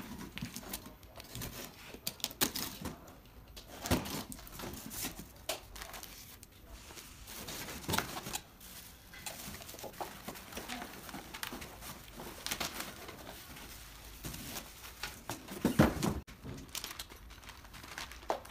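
Cardboard box being unpacked by hand: tape cut along the seam, cardboard flaps and inserts rustling and knocking, and plastic wrap and a plastic parts bag crinkling. Several sharp knocks stand out, the loudest about three seconds before the end.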